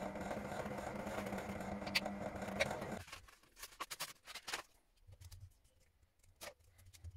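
A power tool's electric motor running steadily with a constant hum, stopping abruptly about three seconds in, followed by a series of light knocks and clicks from wooden parts being handled.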